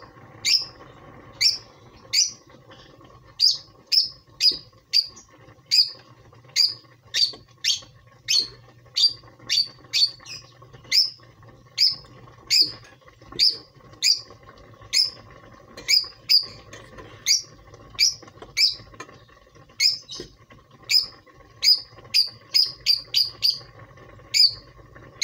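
A small bird chirping over and over: short, sharp, high chirps at an uneven pace of roughly one or two a second, over a faint steady hum.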